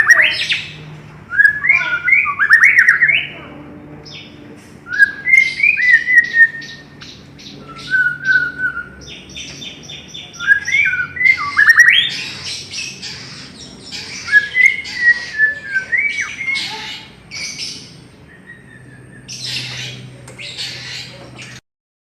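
White-rumped shama (murai batu) singing loudly in repeated phrases every couple of seconds. Rising, sliding whistles are mixed with harsh, rapid rattling and chattering notes.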